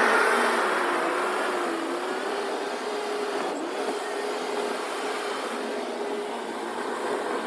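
Skid steer engine running steadily, with a whine that wavers slightly in pitch over a hissing noise, getting a little quieter over the first couple of seconds.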